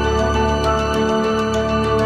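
Background music: sustained synth-like notes over a light, steady ticking beat.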